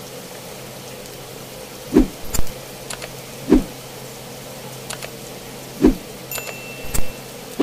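About six sharp metallic knocks, irregularly spaced, each ringing briefly: a utensil or sauce container striking the steel wok while tomato sauce is added to the vegetables, over a steady low hum.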